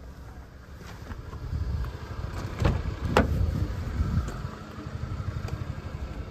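Two sharp clunks about half a second apart from a Toyota Vellfire's doors being handled, over a low handheld rumble.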